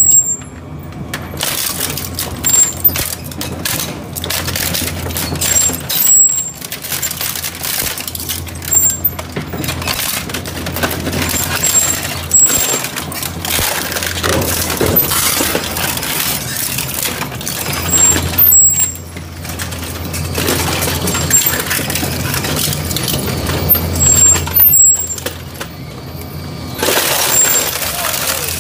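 Twin-shaft shredder with a steady low motor hum, its toothed cutter rollers crunching plastic household items, including an electric fan, with irregular sharp cracks and snaps as the plastic breaks.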